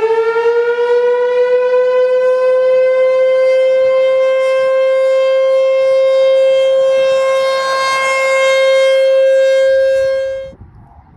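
ASC T-128 rotating outdoor warning siren sounding a single steady tone. Its pitch is still creeping up at first as the rotor comes to full speed, then holds level. The sound cuts off suddenly about ten and a half seconds in.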